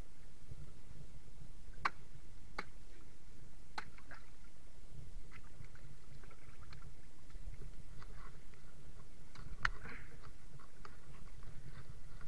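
Scattered knocks and taps on a wooden boat as a caught eel is handled in the water in its bottom, over a low steady rumble. The sharpest knocks come about two seconds in and again near ten seconds.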